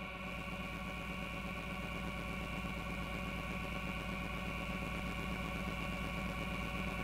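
Electronic music: a sustained drone of many steady tones layered over a fast, flickering pulse in the low end, growing slightly louder.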